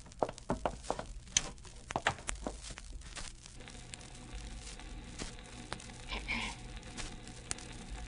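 Sound effect of a home recording disc being played on a phonograph: a run of clicks and knocks over the first three seconds or so as the machine is started and the needle set down, then a steady low hum with faint crackle from the record's surface.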